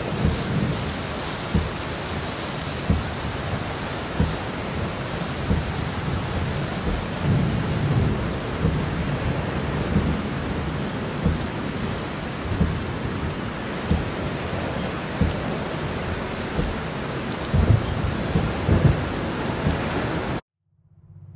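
Very heavy rain hitting the windshield and roof of a moving 2005 Subaru Forester, heard from inside the cabin as a dense, steady hiss with irregular louder surges and low thuds. The sound cuts off suddenly near the end.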